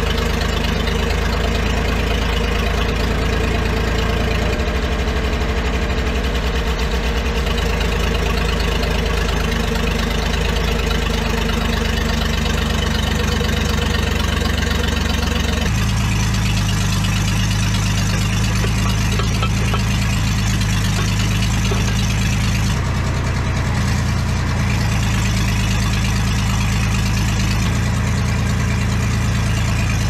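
1970s John Deere 310 backhoe's diesel engine running steadily while its hydraulics work the backhoe boom and bucket.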